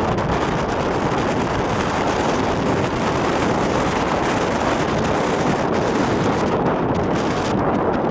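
Strong wind blowing over the microphone in a loud, steady rush, the gale of an approaching typhoon on an open volcanic ridge.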